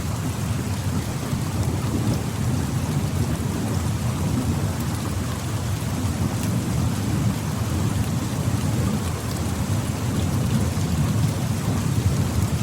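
Steady rainfall falling through forest trees: an even, continuous wash of rain with a deep low rumble underneath and faint scattered drip ticks, without any single standout event.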